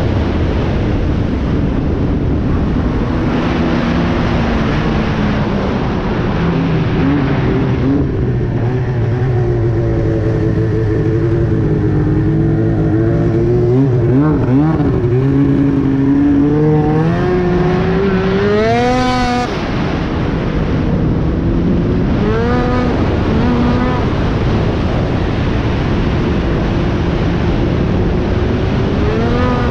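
2009 Arctic Cat Crossfire 1000 snowmobile's two-stroke twin engine running loud through an aftermarket GGB exhaust can while riding. Its pitch sags and climbs with the throttle, with a sharp rev-up about two-thirds of the way through that falls away quickly, then smaller rises later on.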